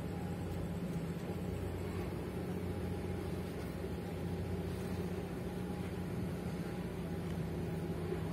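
Steady low mechanical hum from the engines and machinery of the EVER ACE, a 400-metre container ship passing close by; an even drone with a few constant tones and no change in pitch.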